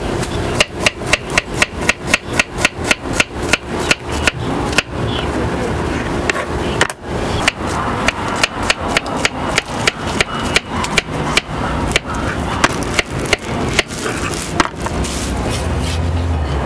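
Kitchen knife chopping a peeled banana into slices: quick, even knocks of the blade on the cutting board, about four a second, in two runs with a short pause between.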